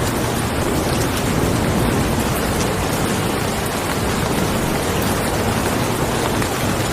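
Steady heavy rain, an even hiss of falling water.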